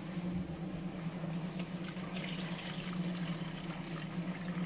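Water being drained off soaked couscous, trickling from a plastic bowl into a small bowl. A steady low hum runs underneath.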